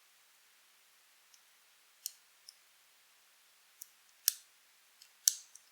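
Scattered sharp metallic clicks of a lock pick and tension wrench working in a pin-tumbler Euro cylinder, with two louder clicks in the second half.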